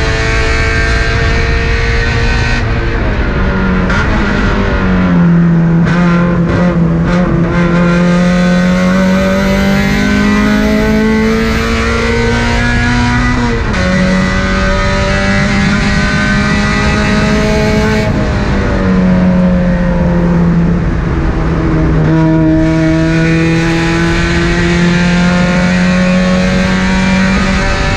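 A car's engine running hard on a racetrack lap. Its pitch climbs steadily under acceleration and drops sharply at each gear change or braking point, several times.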